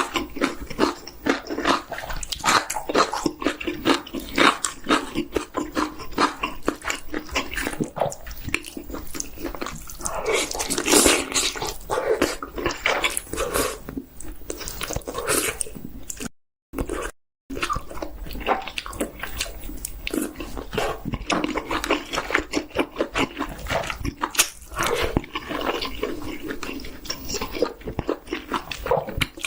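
Close-miked chewing and biting into chicken: a steady run of wet mouth smacks and crunches. The sound cuts out twice for a moment near the middle.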